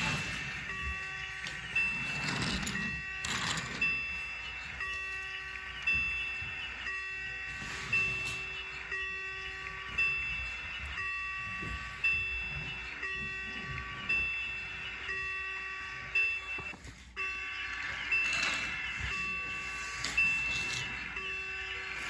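Toy railroad crossing signal's electronic bell dinging about once a second, each ding ringing out briefly; it cuts out for a moment about two-thirds of the way through. Bits of rustling noise come and go under it.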